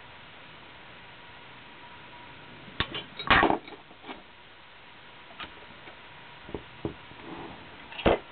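Workshop handling noises: hard objects clinking and knocking, with a quick cluster about three seconds in, a few lighter taps after it, and another sharp knock near the end.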